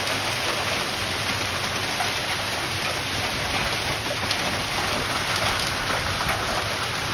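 Heavy rain pouring down in a storm: a dense, steady hiss with scattered drop ticks.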